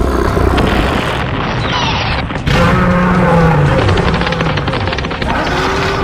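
Layered cartoon action sound effects over background music. About two and a half seconds in, the mix jumps louder, with a falling low tone and a fast rattle of clicks.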